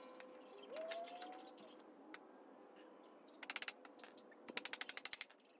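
Two quick rattling runs of sharp clicks, about three and a half and four and a half seconds in, from hand work with a hammer and nails on pallet boards.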